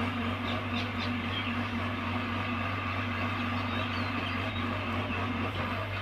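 Diesel engine of a Hyundai mini excavator running steadily with a low, even hum while its arm and bucket dig soil.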